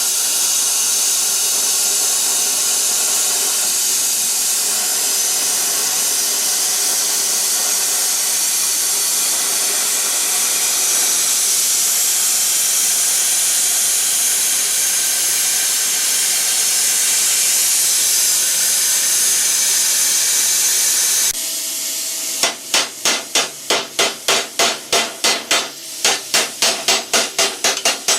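Plasma cutter cutting out a steel spanner: a steady, loud hiss of the arc and air jet that stops abruptly about 21 seconds in. A second or so later comes a fast run of sharp metal knocks, about three a second with a short break partway, like hammer blows on steel plate.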